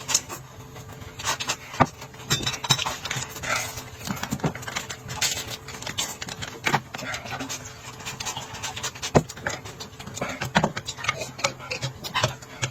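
Close-up eating sounds: irregular clicks, smacks and short crunchy bursts of chewing, several each second.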